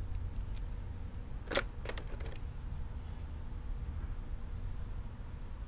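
An aluminium camshaft bearing cap and its bolts clicking in the hands: one sharp metallic click about one and a half seconds in, then a few fainter clicks, over a steady low rumble.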